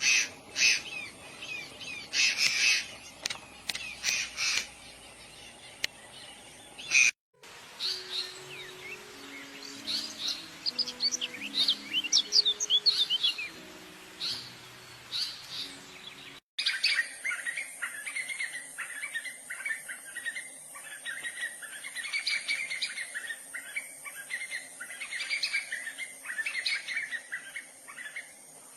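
Small birds chirping and calling in three separate stretches, each cut off abruptly. The first has harsh bursts of chirps, the middle quick high chirps over faint low notes, and the last a run of repeated calls under a steady high hiss.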